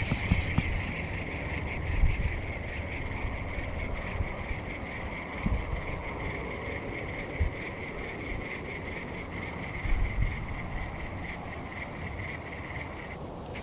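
Steady chorus of small calling animals, a finely pulsing high trill that cuts off shortly before the end, over a low rumble with a few soft bumps.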